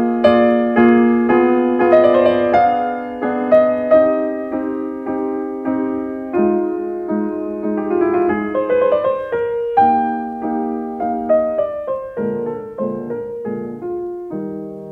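Background piano music: a slow melody of struck notes, about two a second, dying away near the end.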